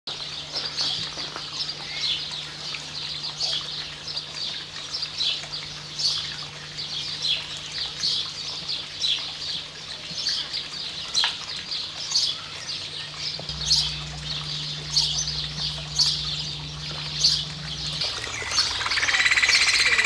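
Variable oystercatcher giving short, high peeping calls over and over, about two a second. Near the end a faster, denser trilling builds up.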